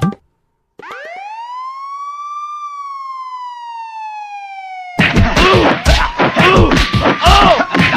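Siren sound effect: a single siren tone winds up over about two seconds, then slowly slides down. About five seconds in, a louder section starts, with quick rising-and-falling siren tones and heavy thuds.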